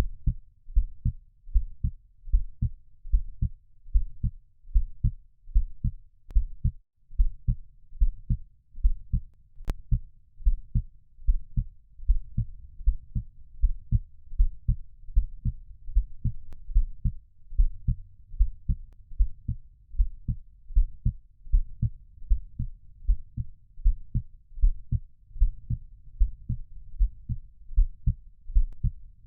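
Heartbeat sound: a steady, even rhythm of low, muffled lub-dub thumps.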